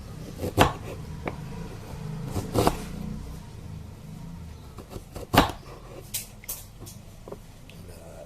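Knife cutting ginger on a cutting board: a handful of sharp, irregular knocks, the loudest about half a second and about five and a half seconds in.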